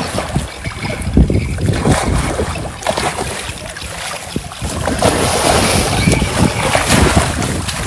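Water splashing and churning as a large hooked fish thrashes at the surface, with wind buffeting the microphone. The splashing grows louder about five seconds in.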